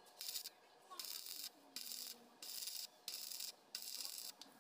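Electric arc welder with a stick electrode crackling and hissing in a string of short bursts, about half a second each with brief pauses between. The pauses come from tack welds being laid to join the e-rickshaw's body to its chassis.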